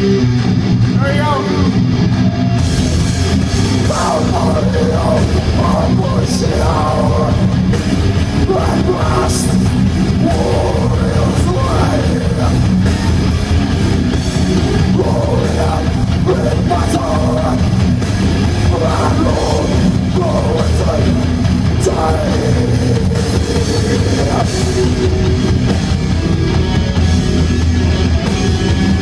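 Death metal band playing live at full volume: electric guitars, bass and drums, with the cymbals coming in about two and a half seconds in.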